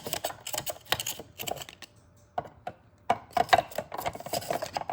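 Manual vegetable chopper working with its small blade, giving rapid plastic clicking and clacking as vegetables are cut into very small pieces. The clicking comes in two bursts with a short pause about two seconds in.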